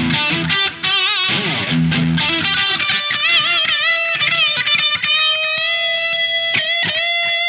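Electric guitar played through a Boss Katana 100 amp in a wet/dry/wet stereo rig with modulation and delay, riffing a lead line. Wavering, vibrato-laden notes and a few low notes come first, then string bends. The phrase ends on a long held note with a light vibrato.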